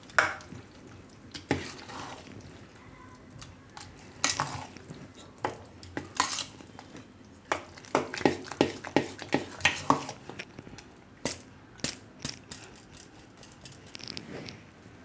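Metal spoon stirring thick semolina batter in a stainless steel bowl: irregular clinks and scrapes of the spoon against the steel, coming faster in the middle.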